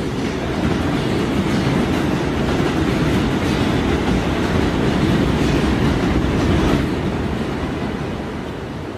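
A heavy vehicle passing, most likely a train, with a loud steady rumble that begins abruptly and fades away from about seven seconds in.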